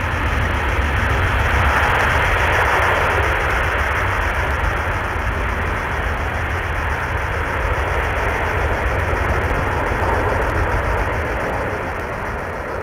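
Loud jet-engine noise from a Lockheed L-1011-500 TriStar's three Rolls-Royce RB211 turbofans as the airliner rolls out on the runway after touchdown, with a deep rumble underneath. The noise swells over the first two seconds, then holds steady.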